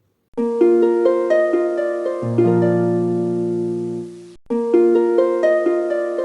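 Background music: a short phrase of quick plucked notes over a held bass line. The phrase stops just past four seconds in and starts over.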